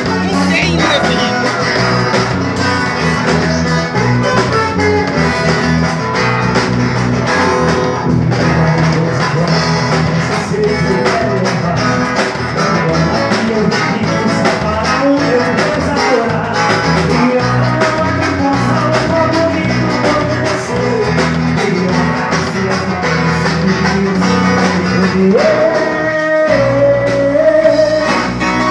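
Acoustic guitar (violão) played continuously, picked so that it imitates the twang of a Brazilian viola caipira. A held note sounds over it near the end.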